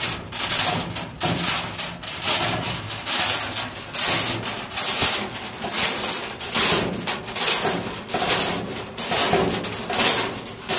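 Chain block being worked to lower a heavy transformer: the steel chain rattles and clinks in quick, uneven repeated strokes, about two or three a second.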